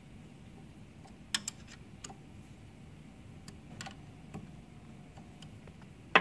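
Scattered sharp metal clicks of a hex (Allen) key against the bolts of an aluminium ball-nut adapter block: a quick pair about a second and a half in, single clicks around two and four seconds, and a sharper one at the very end.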